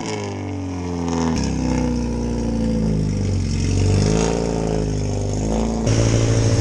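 Car engine revving, its pitch rising and falling several times. Near the end it settles into a louder, steady low drone with a pulsing beat.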